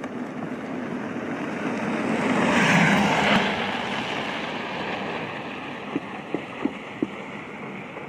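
A car driving past on a snowy road: its tyre and engine noise swells to a peak about three seconds in and then fades. Four short, sharp pitched clicks come close together near the end.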